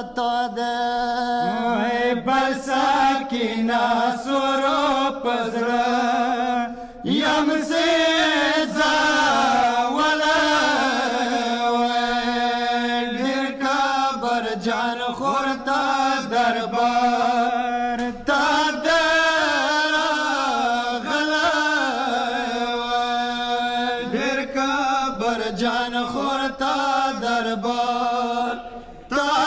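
A group of men chanting a Pashto noha, a Shia mourning lament, with no instruments. The lead voice sings into a microphone, and there are short breath pauses about seven seconds in and near the end.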